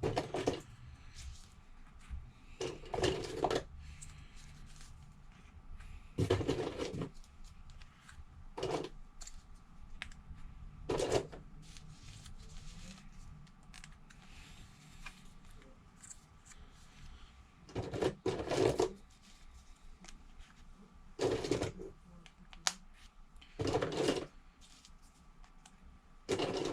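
Short bursts of handling noise from repair bench work, about eight of them a few seconds apart, with a longer quiet stretch in the middle.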